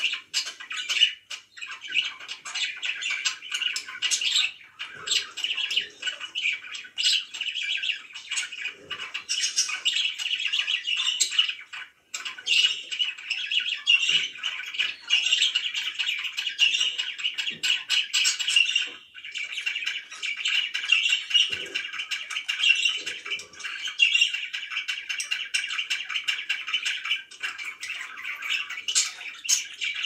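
Several pet budgerigars chattering and chirping together in a continuous, dense warble, with brief lulls about twelve and nineteen seconds in.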